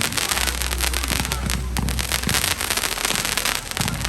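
Fireworks display: a dense, unbroken run of bangs and crackling, with a steady low rumble underneath from about a third of a second in.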